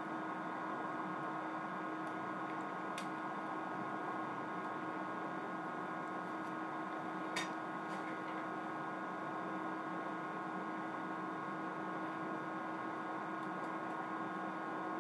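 Steady electrical hum made of several fixed tones. Two faint clicks sound over it, about three seconds in and again a little past seven seconds.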